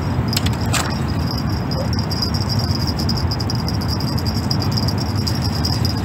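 Crickets trilling steadily in a high continuous band over a loud, even low rumble, with a sharp click just under a second in.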